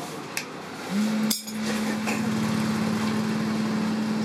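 Light metal clinks and then a sharp metallic knock from a hand tool at a foundry furnace. A steady low hum comes in about a second in, rising slightly at first, and carries on.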